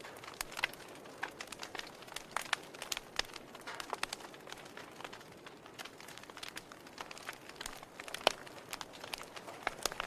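Fireplace fire crackling: irregular sharp pops and snaps over a soft hiss, with one louder pop about eight seconds in.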